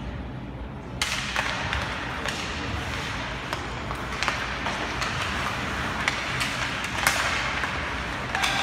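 Ice hockey play: skates scraping on the ice, the sound rising sharply about a second in as play starts from a faceoff, with sharp clacks of sticks and puck every second or so, the loudest about seven seconds in.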